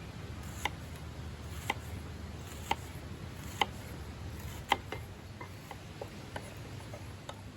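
A series of sharp, ringing clicks: five louder ones about a second apart, then several fainter ones in quicker succession, over a steady low rumble.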